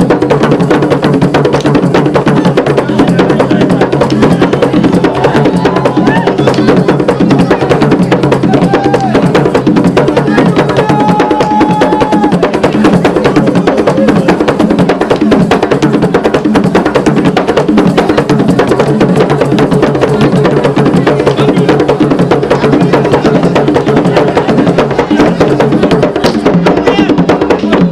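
Traditional African music driven by drums and wooden percussion, playing a dense, steady rhythm of rapid strokes without a break.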